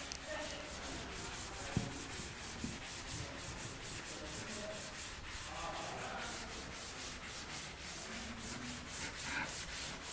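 A cloth wiping chalk off a chalkboard in rapid, rhythmic back-and-forth strokes, with one short knock a little under two seconds in.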